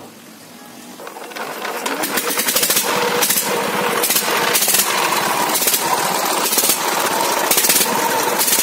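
Diesel power-tiller engine on a homemade loader, just started, picking up and running louder from about a second in with a rapid knocking beat.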